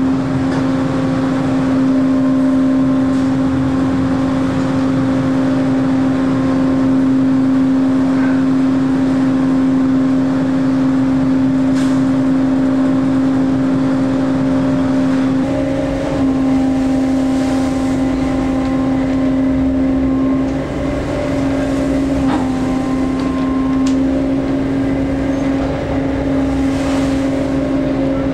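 Steady drone of a longline fishing boat's engine and deck machinery: one strong, even hum with fainter overtones over the rush of wind and sea. About halfway through a deeper rumble joins in.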